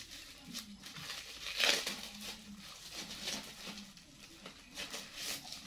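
Packaging crinkling and rustling in short, irregular bursts as a small boxed item and its paper insert are handled and unpacked.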